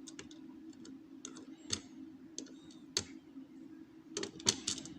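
Small sharp clicks and taps from the parts of a disassembled rim cylinder lock being handled, scattered singly at first, then a quick run of clicks about four seconds in.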